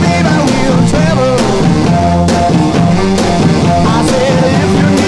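Background rock music with drums and a bending lead melody.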